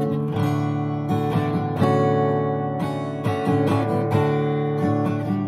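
Acoustic guitar strummed in a slow instrumental passage between sung lines, a few strokes with the chords left ringing.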